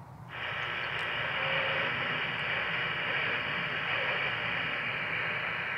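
Handheld CB walkie-talkie receiving only steady static, with the squelch open, while waiting for a reply. The hiss comes on abruptly just after the start and holds level, cut off above the voice range.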